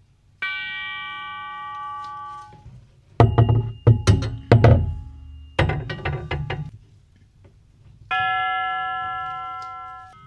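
Herschede grandfather clock chime tubes struck one at a time, each ringing out and slowly fading, twice. Between the two notes comes a run of loud knocks and clanks.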